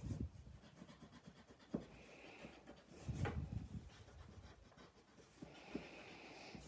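Pencil's rubber eraser rubbing on drawing paper in a few short bouts, erasing pencil lines. Faint.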